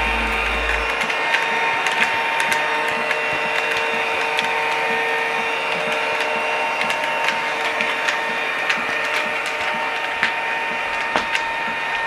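Battery-powered toy vacuum cleaner running: a small motor's steady whine, with many small clicks and rattles from the plastic pieces spinning inside its clear chamber.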